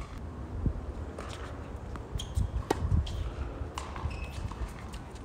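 Tennis ball being hit by rackets and bouncing on a hard court during a doubles rally: a few sharp pops about a second apart, over a low rumble.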